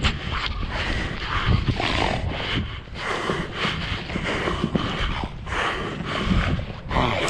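Cape fur seals in a crowded colony calling over one another: many overlapping bleating and barking calls, with a low rumble of wind on the microphone.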